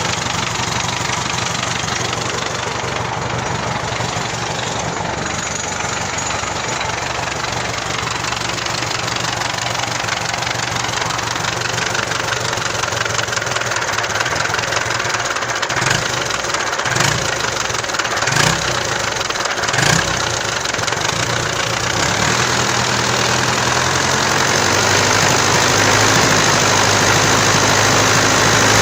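MTZ-82 tractor's four-cylinder diesel engine idling steadily, with four sharp knocks a little past halfway; the engine runs a little louder over the last few seconds.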